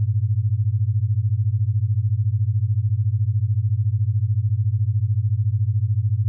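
A steady low hum with a fast, even throb and no higher sound at all; no rain can be heard.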